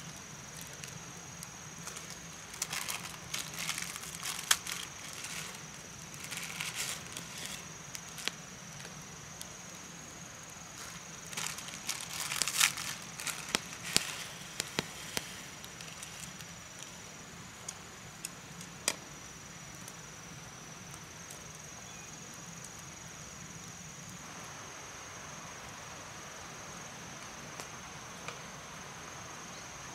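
Plastic food packet crinkling and rustling in two spells during the first half, with sharp crackles, as food is added to a pan of oil over a wood fire; sparse single clicks follow. A steady high-pitched tone runs underneath.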